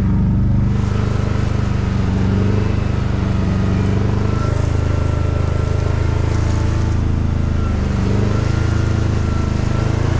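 Nissan Patrol 4WD's engine working hard as it drives through soft beach sand, a steady low engine note that shifts in pitch about four seconds in and again near eight seconds.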